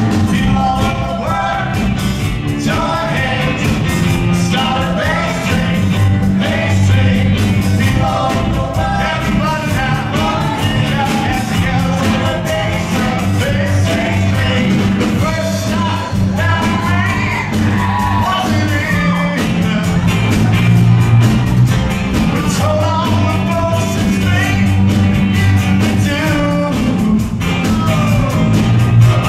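Live band playing a song, with guitars, bass guitar and drums under sung vocals.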